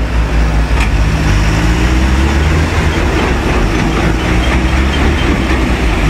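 Heavy diesel truck engines running hard under load: a flatbed truck is towing a log-laden truck out of deep mud on a chain. A steady, loud low rumble.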